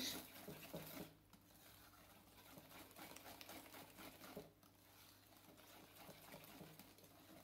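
Wire whisk beating thick, wet chocolate cake batter in a ceramic bowl: faint, soft repeated strokes.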